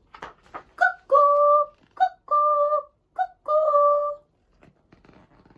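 Cuckoo clock sounding its call three times: each 'cuck-oo' is a short higher note followed by a longer, steady lower note, with small clicks before the calls.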